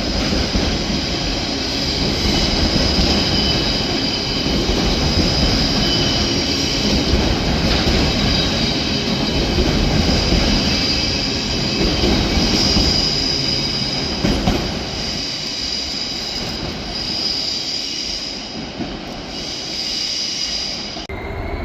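Freight train of wagons loaded with sleepers, hauled by a Class 66 diesel locomotive, rolling past on the rails with a continuous rumble and steady high-pitched wheel squeal.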